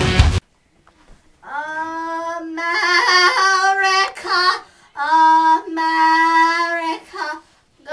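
Rock music cuts off about half a second in. After a short silence, a young woman sings alone, unaccompanied, in long held notes with a few short pauses.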